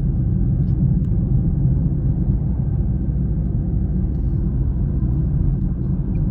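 Car in motion heard from inside the cabin: a steady low road and engine rumble.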